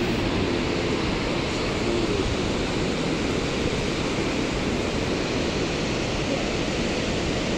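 Steady, even rushing noise with no distinct events, of the kind made by wind or running water.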